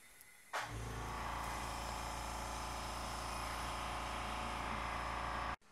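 Vacuum pump of an OK Products FR2 shock bleeding and filling unit switching on about half a second in and running with a steady electric-motor hum, then switched off abruptly near the end.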